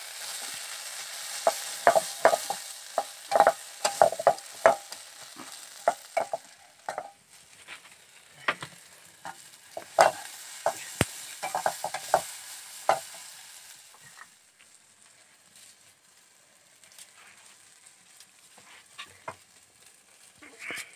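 Locusts frying in a pan, stirred with a metal utensil: repeated sharp scrapes and clicks of the utensil on the pan over a hiss of sizzling. The sizzle fades after about six seconds, and after about thirteen seconds the stirring thins to a few occasional clicks.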